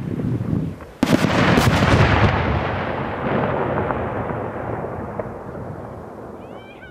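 A large aerial firework shell bursting with one loud bang about a second in. Its echo rumbles on and slowly fades over several seconds.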